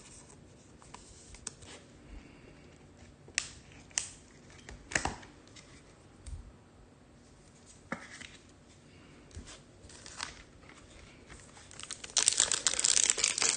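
A few light clicks and taps from cards being handled. About twelve seconds in comes loud crinkling and tearing as a trading-card pack wrapper is ripped open.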